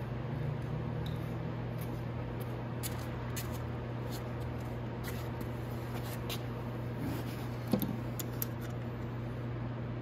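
Steady low hum of room tone with scattered faint clicks, and a couple of soft knocks about three-quarters of the way in.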